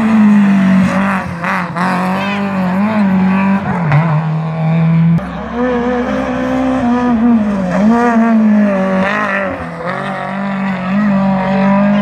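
Rally car engine revving hard, its pitch climbing and dropping repeatedly with throttle and gear changes.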